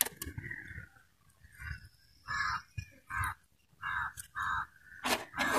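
Crows cawing: about four harsh caws of roughly a third of a second each, starting about two seconds in. A few short sharp clicks and rustles come near the start and again near the end.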